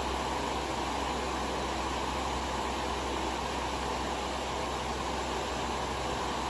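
Lasko 16-inch Performance table fan, model 2506, running: a steady rush of moving air over a low, even hum.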